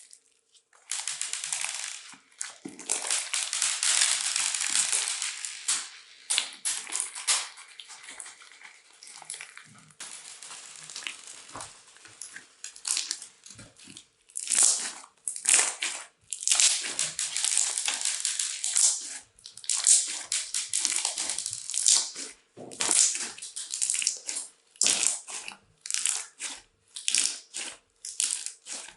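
Crunchy slime with beads being squeezed and kneaded by hand: dense crackling and popping that comes in repeated squeezes of a second or a few seconds, with brief pauses between them.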